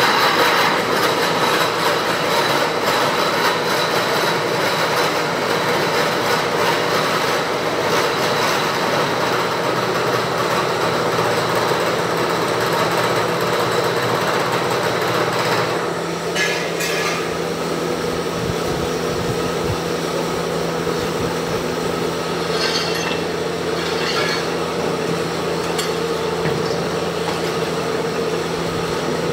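Heel cutting machine running: a steady machine hum under a dense cutting hiss. The hiss drops away a little over halfway through, leaving the hum and a few short knocks.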